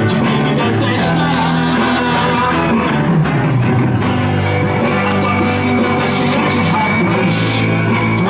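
Live rock band playing, with electric guitars and a drum kit over a line of held low bass notes.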